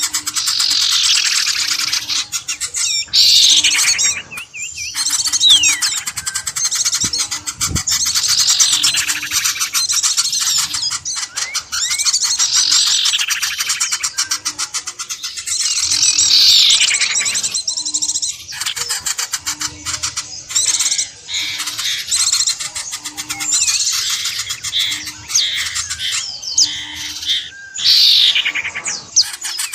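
Bird-lure recording: a dense chorus of many small birds chirping, with loud falling trills every few seconds. Under it runs a short, low, evenly repeated note.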